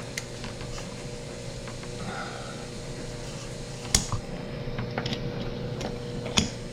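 A few sharp clicks and taps of small engine parts being handled while the shifter is taken out of a Kawasaki KX65 engine: the loudest about four seconds in, another near the end. A steady low hum runs underneath.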